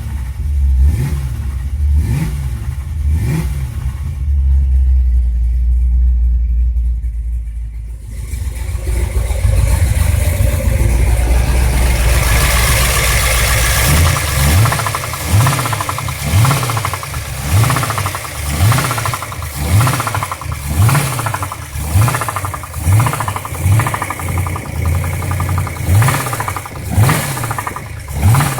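Ford 351 Cleveland V8 engine running with a knocking noise, a regular pulse a little over once a second, with a steadier stretch in the middle.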